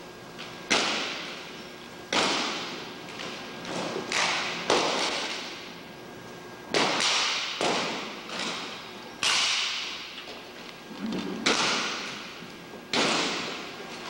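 A rifle drill squad's rifles being slapped and struck in unison, about a dozen sharp cracks and thuds at irregular intervals, each ringing out in the echo of a large gymnasium.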